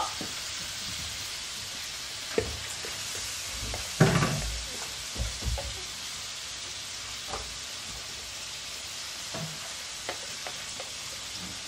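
Lamb chops sizzling in a hot frying pan, a steady hiss, with a few short knocks and clatters against the pan, the loudest about four seconds in.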